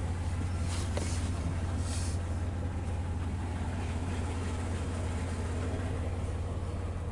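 Pickup truck engine idling steadily with a continuous low hum, just started after a fresh oil change. A couple of brief higher noises come in the first two seconds.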